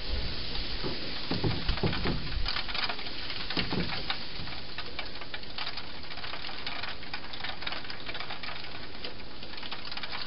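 Wild hedgehog eating from a bowl inside a plastic feeding box: a run of small, irregular crunching and smacking clicks over a steady background hiss.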